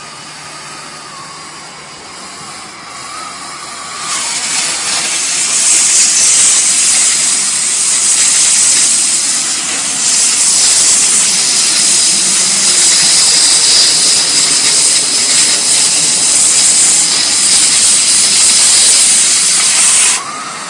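Harris 62-5F injector-style cutting torch burning propane. The preheat flame hisses for about four seconds, then the cutting oxygen comes on with a much louder hiss as the torch cuts through 2-inch steel, and it cuts off suddenly near the end.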